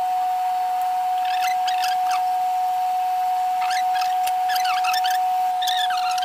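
A steady high-pitched whine runs throughout, with small birds chirping in short calls several times over it.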